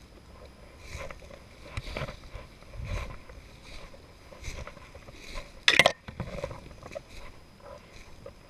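Footsteps crunching and swishing through dry grass and leaf litter at a walking pace. About two-thirds of the way in there is one loud, short crackle or scrape, like brush or a twig catching against the body.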